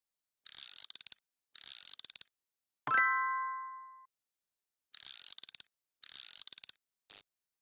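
Ratchet-crank wind-up sound effect: a key or crank wound in short bursts of rapid ratcheting clicks. There are two bursts, then one bright ringing ding that dies away over about a second, then two more bursts and a short click near the end.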